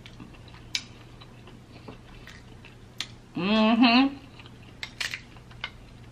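A woman hums a short, wavering 'mmm' about three and a half seconds in. Around it are faint scattered clicks of crab shell being picked apart by hand, and some chewing.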